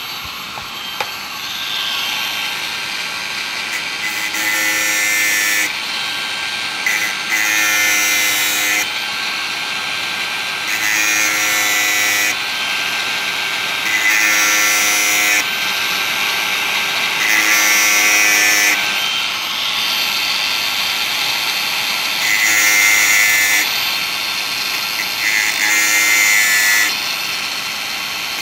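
Makita DGA504 18 V cordless angle grinder with a 115 mm cutting disc running steadily, with about eight short bursts of grinding, one every three to four seconds, as the disc is touched to the chainsaw chain's cutters one by one to sharpen them.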